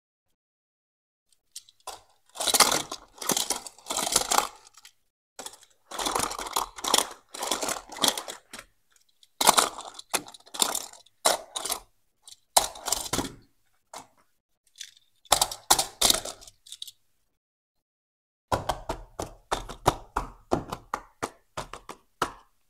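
Hands handling a die-cast Tomica toy car and its small cardboard boxes: irregular clusters of clicks, taps and scrapes, in several bursts separated by short silences.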